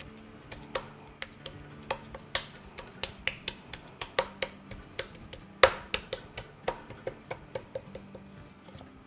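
Hands patting and pressing oiled puri dough flat on a granite countertop: a string of sharp, irregular sticky clicks and taps as the fingers press down and lift off the oily dough, with one louder smack a little past the middle.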